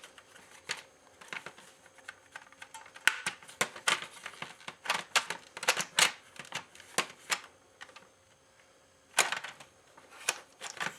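Hard plastic parts of a disassembled Nerf Rival Apollo blaster clicking and clattering as they are handled and fitted together, in irregular sharp clicks. The clicks stop for a moment about three-quarters of the way through, then come back as a louder rattle.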